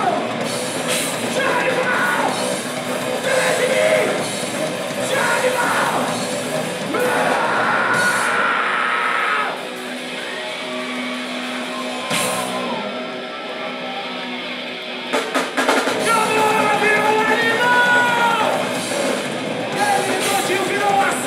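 Hardcore punk band playing live: shouted vocals over distorted electric guitars, bass and drum kit. About halfway through the band drops to a quieter, thinner passage for several seconds, then the drums and full band come back in.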